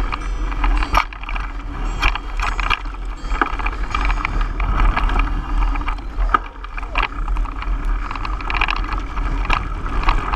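Trek EX7 29er mountain bike rolling fast over a dirt singletrack, heard from a camera on the bike: a steady low rumble of tyres and wind on the microphone, with frequent clattering knocks as the bike bounces over bumps.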